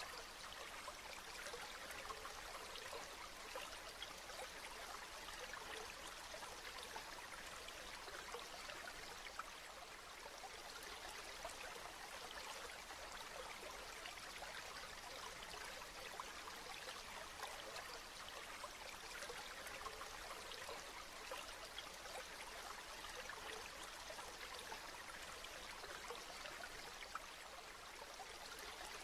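Steady rain falling: an even hiss made of many small drop impacts, with no change in intensity.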